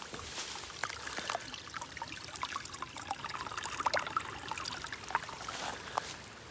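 A small stream trickling, with many small water plinks and bubbles.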